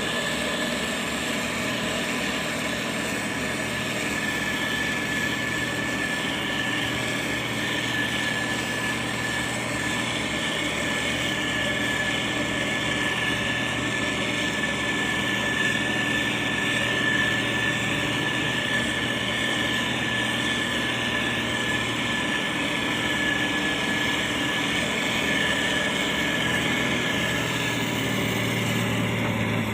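Motor grader's diesel engine running steadily, with a constant high-pitched whine over the engine note. The low engine tone grows a little stronger near the end.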